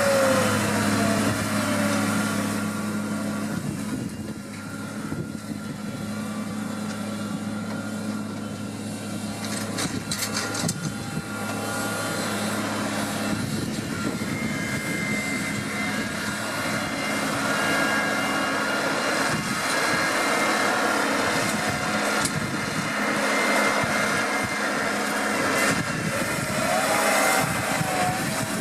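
New Holland T7040 tractor's six-cylinder diesel engine running under load while pulling a seed drill. A steady engine note is loudest at the start and fades over the first few seconds, then carries on lower with rough working noise.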